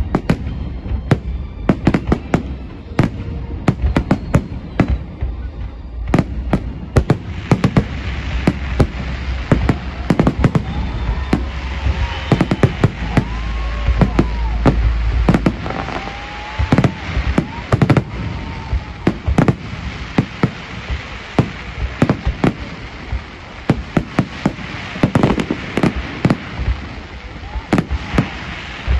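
Fireworks display: aerial shells bursting in a rapid, continuous barrage of sharp bangs, with some rising-and-falling tones near the middle.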